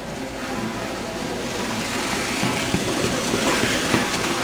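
Weight-loaded push sled sliding along a rubber gym track: a continuous rumbling scrape that grows louder, with a few light knocks.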